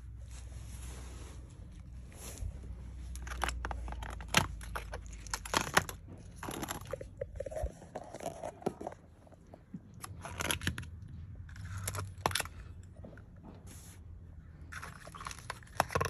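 Handling noise: scattered clicks, knocks and scrapes of plastic washing-machine drain pumps being moved about and picked up. A low rumble runs underneath and cuts off suddenly about eight seconds in.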